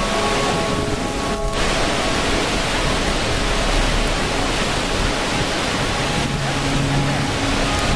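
Steady, dense rushing water noise, with soft held music notes over it.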